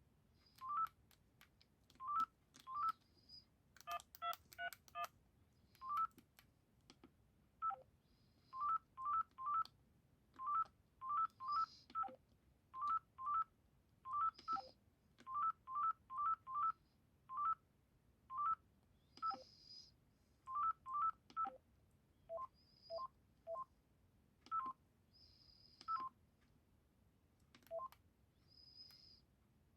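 Panasonic GD67 mobile phone keypad beeps: short single tones, each with a click, as buttons are pressed at an irregular pace through the menus. There is a quick burst of several tones about four seconds in.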